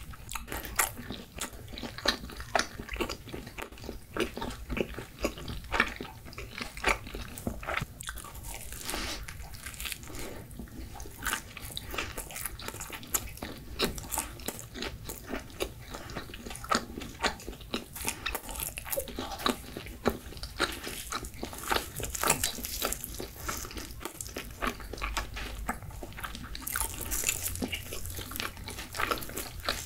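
Close-miked chewing of crunchy pizza crust: a dense, irregular run of crunches and wet mouth clicks. Near the end comes a brief crackling rustle as a crust piece is torn apart with gloved hands.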